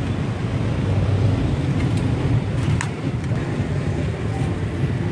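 Steady low rumble of street traffic from passing motor vehicles, with one brief sharp click a little before the middle.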